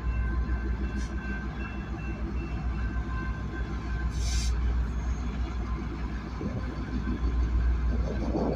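Diesel-hauled freight train running by with a steady low rumble and a few faint steady high tones. A short hiss comes about four seconds in.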